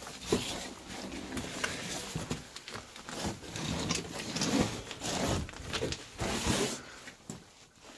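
Irregular scuffs, rustles and clicks from someone moving about on the rocky floor of a small cave while handling a camera, busiest in the middle and dying down near the end.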